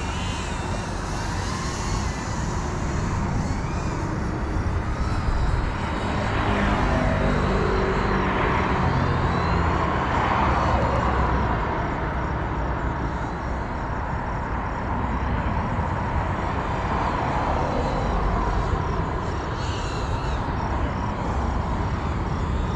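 Small FPV cinewhoop drone (GEPRC Cinelog 35) flying, its motors and propellers whining and changing pitch with the pilot's stick inputs. It grows louder and passes with a falling pitch in the middle, over a steady low rumble.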